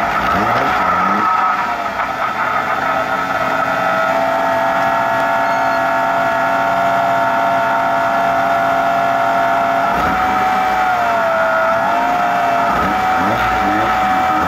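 Turbocharged off-road race buggy engine running steadily at a held speed with the car standing still, a steady whine over the engine note that steps up slightly in pitch about ten seconds in and wavers briefly after.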